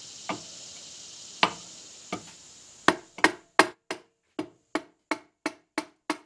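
A mallet tapping the aluminium sump cover of a Briggs & Stratton 18.5 HP Intek OHV engine down onto the crankcase, seating it over the crankshaft. A few scattered taps come first, then a steady run of taps about three a second from about halfway in.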